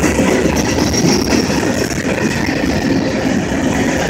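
Freight train's covered hopper cars rolling past at close range: a steady, loud rumble and rattle of steel wheels on the rails.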